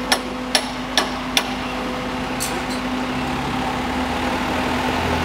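Four sharp, ringing hammer blows about half a second apart in the first second and a half, over the steady running of the truck-mounted crane's engine. Toward the end a tractor engine grows louder as it approaches.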